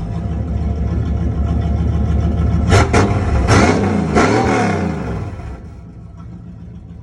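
A 3rd-gen Camaro's engine, fitted with a JEGS exhaust cutout, is revved in several quick blips a few seconds in, its pitch rising and falling. It then drops back to a quieter idle.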